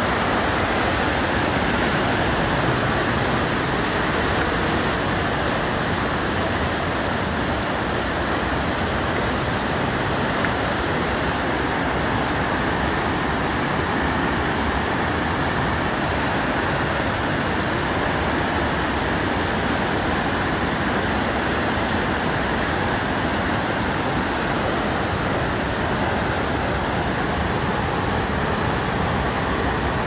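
Fast mountain river rushing: a steady, unbroken noise of running water.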